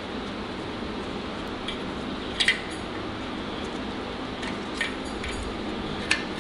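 Main bearing shells being pressed into the main saddles of a Mopar 440 engine block: a few light metallic clicks and clinks, the loudest a quick double click about two and a half seconds in. A steady low hum underneath.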